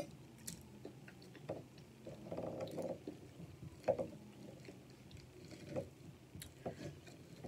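Soft close-up chewing and wet mouth sounds of someone eating steak, black beans and rice, with scattered light clicks of a fork working against the plate.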